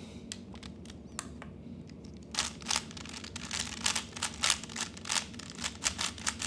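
3x3 speed cube being turned by hand, its layers clicking as they snap into place. A few separate clicks at first, then from about two seconds in a quick, irregular run of turns at several clicks a second.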